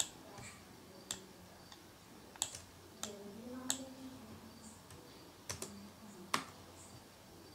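Computer mouse and keyboard clicks: about eight sharp single clicks at uneven gaps, two in quick succession about five and a half seconds in.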